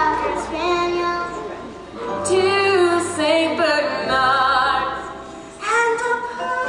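Children singing short solo lines of a Christmas song one after another into a handheld microphone, with a live band accompanying.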